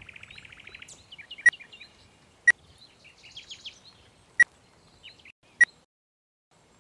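Four sharp key presses on a Samsung keypad mobile phone as a number is dialled, spaced unevenly a second or two apart. Birds chirp faintly in between.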